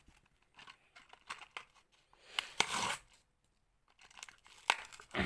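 A Hot Wheels blister pack being torn open by hand: the cardboard backing card tearing and the plastic blister crinkling in short, irregular bursts with sharp clicks.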